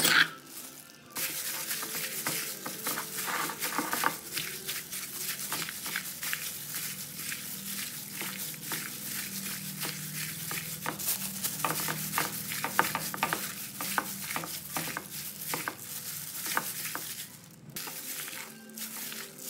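Gloved hand kneading cubed pork in a wet spice paste in a bowl: the plastic glove crinkles and the meat squelches in a stream of small wet clicks. It starts about a second in and pauses briefly near the end.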